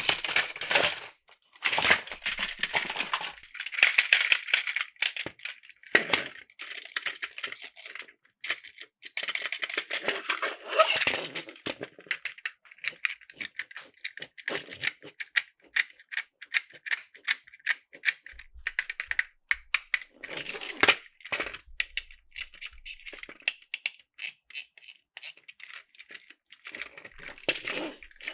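Plastic toy train cars being handled, clattering and clicking against each other, with a dense run of small sharp clicks in the middle.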